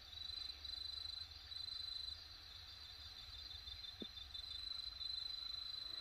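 Night insects, crickets, trilling steadily in a high pitch, in long runs with brief pauses, over a low steady hum. A single faint short knock comes about four seconds in.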